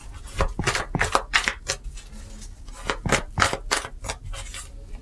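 Deck of tarot cards being shuffled by hand: a run of quick, sharp card slaps and rustles, easing off briefly about halfway through.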